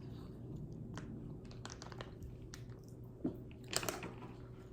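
A person chewing spicy chili-coated mango candy: soft, wet mouth sounds with scattered small clicks, and a couple of sharper clicks a little past three seconds in.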